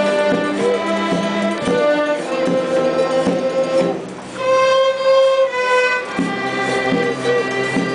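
A large section of violins, with cellos, bowing a melody together in long held notes. The music dips briefly about four seconds in, then comes back on a loud sustained note.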